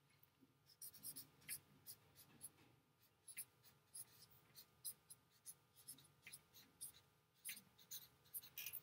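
Marker writing on a chart-paper pad: a run of faint, short scratchy strokes, several a second, as words are written out.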